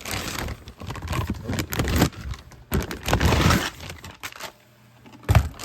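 Plastic packaging crinkling and rustling with small clicks and knocks as a fuel transfer pump is handled out of its box, easing off briefly before a sharp knock near the end.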